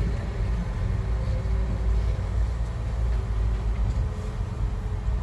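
Heavy-equipment diesel engine running steadily, a low, even sound with a faint steady hum above it.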